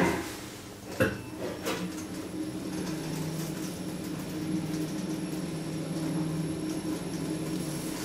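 KONE Transys machine-room-less traction elevator car in motion: a knock right at the start and a click about a second in, then a steady low hum of the car travelling in the shaft.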